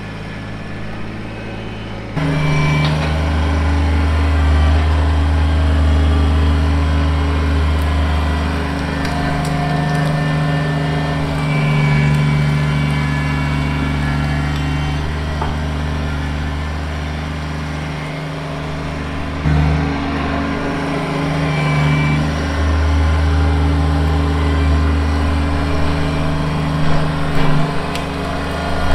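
Kubota BX23S compact tractor's three-cylinder diesel running steadily under working load, its note dipping and rising a little as the loader and grapple work. It gets louder about two seconds in.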